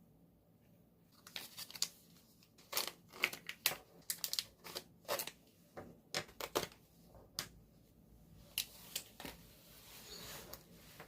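Plastic packaging being handled and torn open: a run of short, irregular crinkles and rustles.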